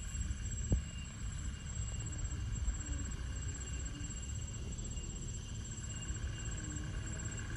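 Low, steady rumble of a heavily overloaded sugarcane truck's diesel engine labouring as it climbs a muddy field track, with a single knock less than a second in. Faint steady high chirping of insects runs underneath.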